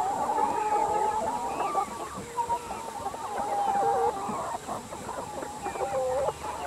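A large flock of brown laying hens clucking and calling over one another, a dense chorus of many overlapping calls.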